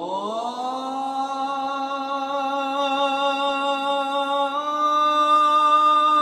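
Background music: a held, drone-like vocal or pad tone that slides up slightly as it comes in and shifts to a higher note about four and a half seconds in.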